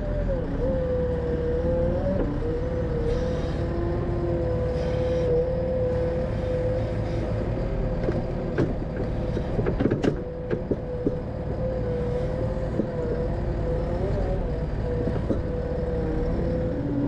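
Heavy equipment working: a steady engine drone with a held whine, and a cluster of short knocks and clanks about halfway through as the toothed excavator bucket scrapes topsoil.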